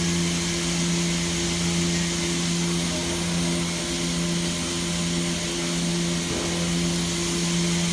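Milking machine system running steadily while the cows are being milked: a constant machine hum with an even hiss over it.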